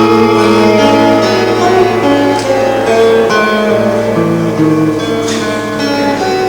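Live guitar and violin duo playing a slow improvised passage: a melody of held notes moving step by step over a steady low drone note.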